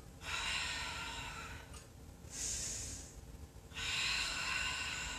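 A woman's deep, audible breathing while she holds a standing yoga side stretch. Two long breaths are separated by a shorter, higher, hissing breath about two and a half seconds in.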